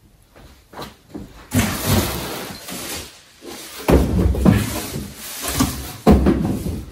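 Cardboard shipping boxes and bubble-wrap packing being handled on a table: rustling and scraping, then two heavy thumps about four and six seconds in as the boxes are moved and set down.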